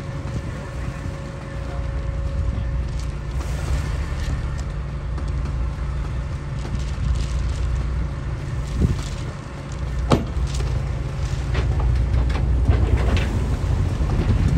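Steady, deep diesel engine rumble from a Shannon-class lifeboat and its launch tractor as the boat is pushed off its carriage into the sea, with a couple of sharp knocks near the middle. It grows louder toward the end.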